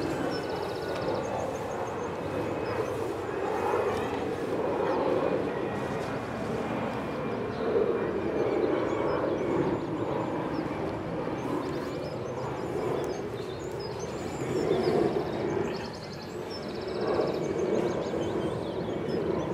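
Outdoor background ambience: a steady low rumble of noise, with short high bird trills a second or so in and again about two-thirds of the way through.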